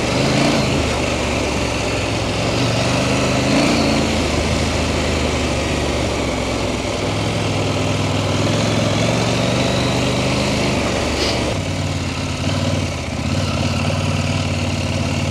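KTM 890 Adventure R's parallel-twin engine running at low, fairly steady revs, with a short dip in level a little before the end.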